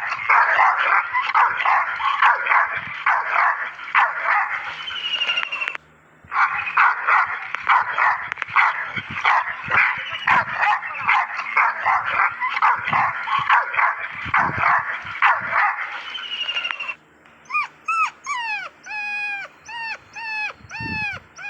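Dogs barking in quick, overlapping volleys, with a short break about six seconds in. Near the end this gives way to a string of short, high whimpers, each falling in pitch, about two a second.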